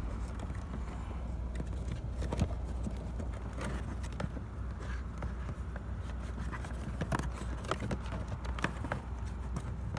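Scattered light plastic clicks and knocks as hands work loose the plastic trim and cover behind a car's removed glove box, over a steady low hum.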